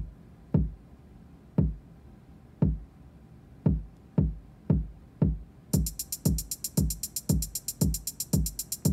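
Electronic kick drum from an ER301 sound computer, triggered by a Euclidean sequencer, hitting about once a second and then twice as often from about four seconds in. Near six seconds a rapid, steady electronic hi-hat pattern joins.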